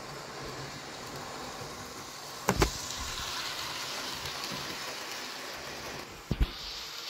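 Bachmann OO gauge LBSC H2 Atlantic model steam locomotive running on a layout with two coaches: a steady whirr of its motor and wheels on the track. Two pairs of sharp clicks come about four seconds apart, the first about two and a half seconds in.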